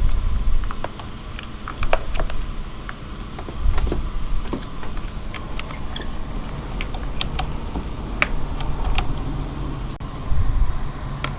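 Irregular metallic clicks and clatter of jumper cable clamps being handled and connected, with a few dull low rumbles of handling.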